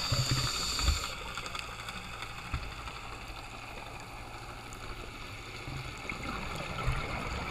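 Muffled underwater sound through a diving camera's housing: a rush of scuba exhaust bubbles that drops away about a second in, then a steady low water hiss with a few soft gurgles.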